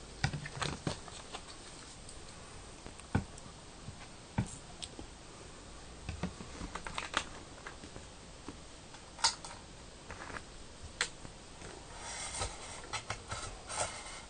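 Hands handling a plastic bottle and a small metal model car: scattered clicks, taps and light knocks, with a busier run of rustling and clatter near the end. No engine running.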